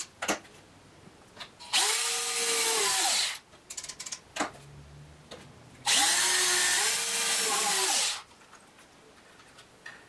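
Corded electric drill run twice into wood, about one and a half seconds and then about two seconds. Each time it spins up, sags a little in pitch as it bites and winds down. A few light knocks of handling come between the runs.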